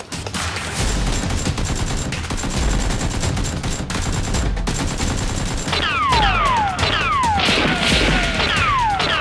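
Rapid automatic gunfire sound effects, dubbed over the toy-blaster battle, with a low beat about once a second underneath. From about six seconds in, repeated falling whistles join the shots, like rounds whizzing past.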